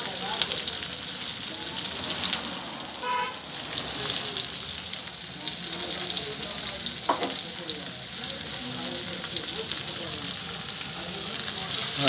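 Chopped onions and green chillies sizzling in hot oil in a kadai, a steady hiss with scattered small crackles.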